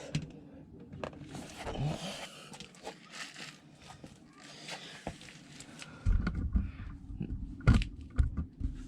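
Faint clicks and scrapes of hand work on plastic car door trim. About six seconds in, a loud low rumble starts, with several sharp knocks.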